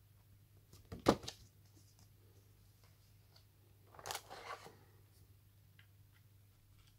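A sharp tap about a second in as the warranty booklet is set down on the table, then a short burst of cardboard and plastic rustling around the middle as the mains charger is lifted out of the phone box's cardboard insert.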